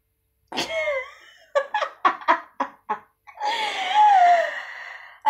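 A woman laughing hard, starting about half a second in: a quick run of short laughs, about five a second, then a long, high, wavering laugh near the end.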